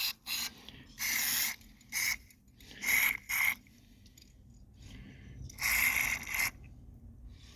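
Aerosol carburetor cleaner sprayed into a carburetor's jets and passages in short hissing bursts, about seven of them, the longest nearly a second near the end, flushing out old gasoline and varnish.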